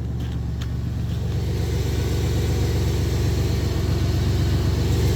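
1997 GMC Sierra pickup running: a steady low engine drone, with a hiss above it that grows slightly louder from about a second and a half in.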